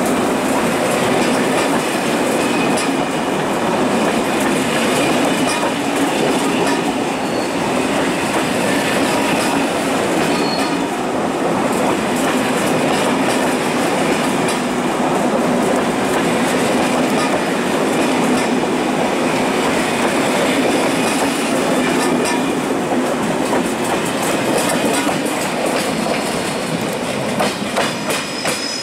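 A train running past on the rails: loud, steady wheel-on-rail rumble with a faint squeal from the wheels. Near the end the steady noise gives way to a rhythmic clatter of wheels over rail joints.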